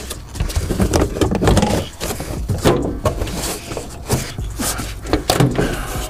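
Irregular clicks and knocks of a hand tool and hard plastic interior trim being handled while a small Torx T20 screw is backed out of a car's interior panel.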